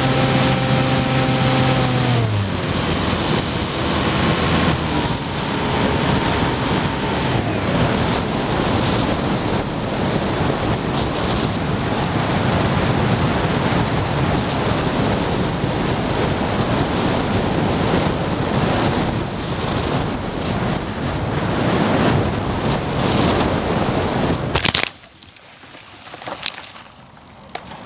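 Skywalker FPV plane's electric motor heard through the onboard camera, its whine dropping in pitch as the throttle is cut in the first few seconds. Then a steady rush of wind over the airframe as it glides. A sharp knock about 25 seconds in as it comes down in grass, after which it is much quieter.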